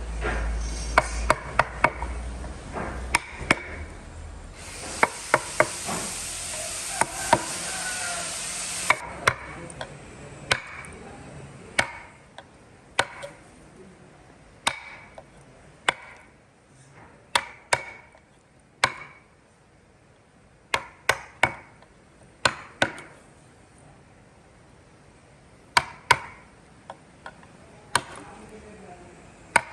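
Wood being chopped or struck with a hand tool: a couple of dozen sharp, irregularly spaced blows, with a few seconds of steady hissing noise about five seconds in.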